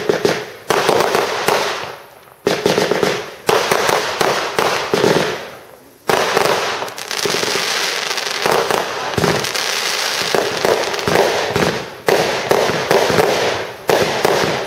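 Aerial fireworks bursting in a rapid series of sharp bangs, each followed by crackling. From about six to about twelve seconds in, the bursts merge into one dense crackle.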